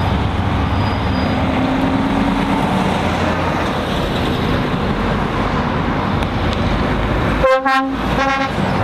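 Lorries running with a steady rumble of engines and traffic, then a vehicle horn sounds two short blasts near the end.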